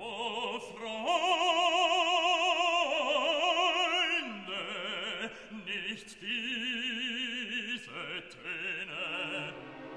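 Background music: operatic singing with a wide vibrato, a few long held notes that change pitch.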